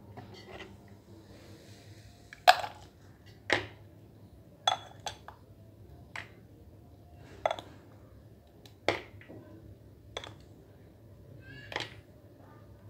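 Steel spoon clinking against a glass tumbler and the rim of a metal pot while lassi and its froth are spooned into the glass: about ten sharp, irregular clinks, a few ringing briefly.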